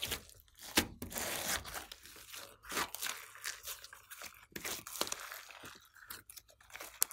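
Glossy slime mixed with clay and floam being squeezed, kneaded and stretched by hand. It crackles and pops with many sharp little clicks and rustly tearing sounds as the slime is pulled apart.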